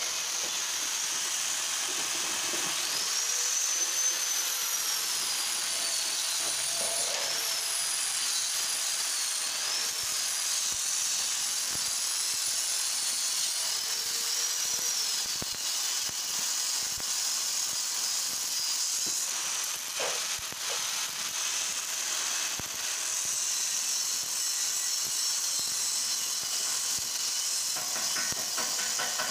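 Stick-welding arc from a 2 mm E6013 electrode burning steadily along the weld, giving a continuous sizzling hiss and crackle.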